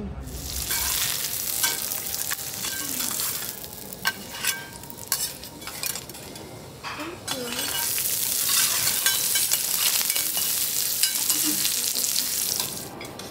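A5 wagyu sirloin cubes and vegetables sizzling on a steel teppanyaki griddle, with metal spatulas clicking and scraping on the plate. The sizzle thins out in the middle, comes back loud, and stops abruptly near the end.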